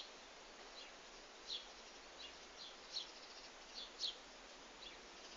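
A bird chirping over and over: short, high chirps that drop in pitch, faint and irregularly spaced, about one or two a second.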